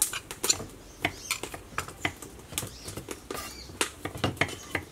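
Irregular sharp taps and clicks of kitchen work: a knife slicing vegetables on a wooden cutting board, with a spoon knocking against a metal pot.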